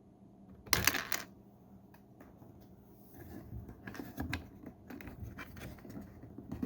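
Hard plastic clicks and small knocks from a flathead screwdriver prying the trim cover off a 2011 Ford Fiesta's interior door handle: a quick cluster of sharp clicks about a second in, then lighter scattered clicks as the cover is worked loose and handled.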